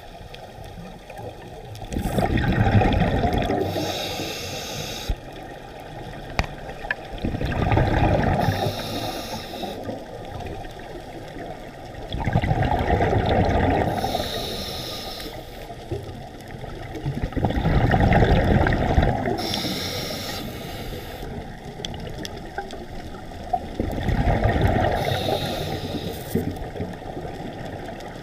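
Scuba diver breathing through a regulator, heard underwater through the camera housing: about five breaths, one every five seconds or so. Each breath is a hiss as air is drawn through the demand valve, then a long bubbling rush of exhaled bubbles.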